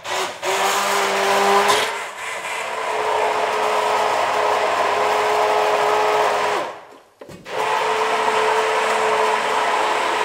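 Electric immersion blender running in barbecue sauce in a stainless steel bowl, pureeing it, with a steady motor whine. It stops briefly about seven seconds in, then starts again.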